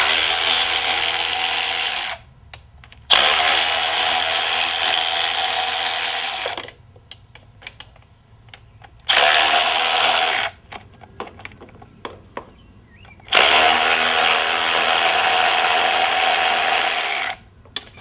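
Motorized socket tool spinning intake manifold bolts out of an engine, running four times for about one to four seconds each with a steady whirring gear whine. Small metallic clicks from the socket and bolts come in the pauses between runs.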